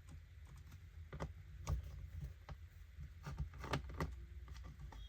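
Scattered small clicks and taps of a screwdriver working screws out of a Dell Latitude E5440 laptop's bottom case, over a low steady hum.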